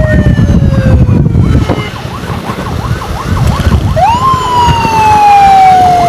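Electronic emergency siren in wail mode: a long tone sliding slowly down in pitch, then about four seconds in it sweeps quickly up and starts another slow fall. A fainter, rapidly warbling siren is heard in the middle, over motorcycle engine and road noise.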